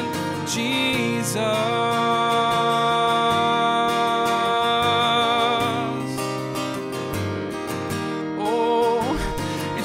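Live worship music: a hymn with acoustic guitar and a band, and a singer holding long notes between wavering sung phrases.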